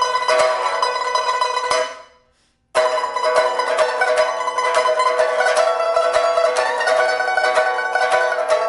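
Pipa of large-leaf red sandalwood, fitted with a new soundboard and frets and strung with a steel first string and copper lower strings, played with fast, dense plucking as a test after repair. The playing breaks off for a moment about two seconds in, then resumes.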